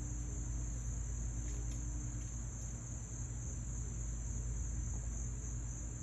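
Steady, unbroken high-pitched insect chorus over a low, even rumble.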